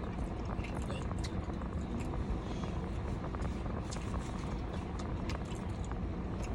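Steady low road and engine rumble inside a moving car, with faint scattered small clicks.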